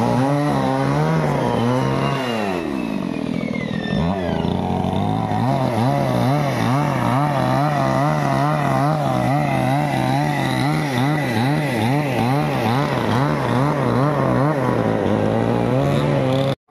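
Petrol two-stroke chainsaw running under load as it cuts lengthwise along a log, its engine note wavering as it works. The revs drop about two seconds in and climb again about four seconds in. The sound cuts off suddenly just before the end.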